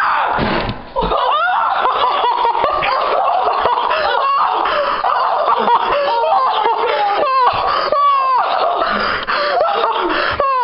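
Several people laughing loudly and shrieking, with no let-up.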